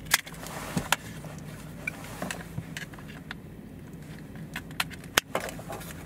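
Sharp plastic clicks and rattles of a power window master switch being handled and its wiring connector plugged in, over a steady low hum. The loudest clicks come just after the start, about a second in and about five seconds in.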